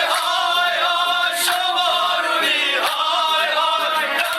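Background music with singing voices; the low bass is cut off.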